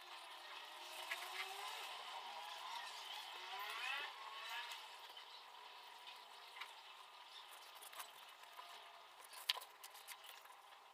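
Faint handling noise of pleated sunshade fabric and its plastic rail and clips being worked by hand, with a few sharp plastic clicks, the loudest near the end. A faint whine rising and falling in pitch runs through the first half.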